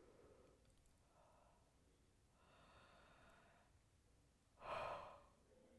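Faint breathing by a person, several soft breaths, then a louder, short exhale like a sigh near the end.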